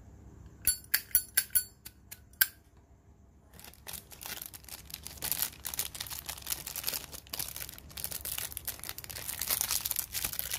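Zippo lighter in chrome-finished brass clicking: a quick run of about seven sharp, ringing metallic clinks as the lid is flipped, followed about a second later by a long crinkling rustle of a wrapper being handled.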